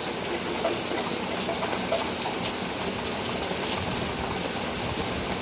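Steady rain falling: an even hiss with scattered faint drop taps.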